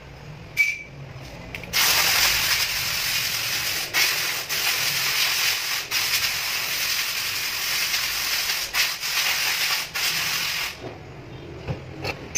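A steady hiss of escaping gas starts about two seconds in and cuts off shortly before the end, with a few brief breaks. A sharp click comes just before it.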